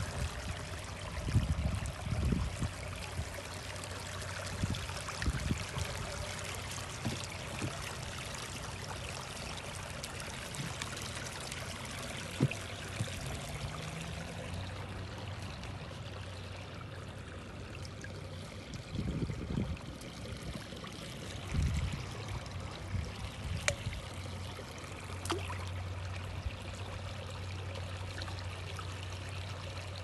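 Small stream running and trickling over rocks, a steady, even water sound. A few low thumps on the microphone break through it about a second in and again past the middle.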